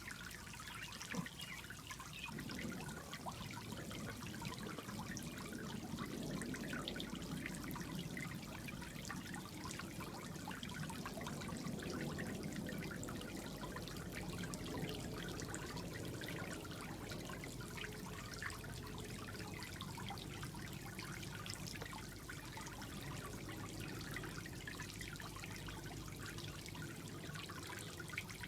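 Steady trickle of water from a pond filter fountain running into a pool.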